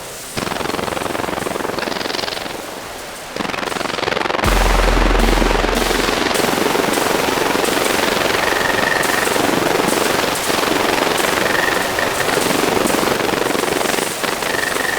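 Fireworks going off inside a plexiglass box: a dense fizzing hiss with rapid crackles, and a deep boom about four and a half seconds in.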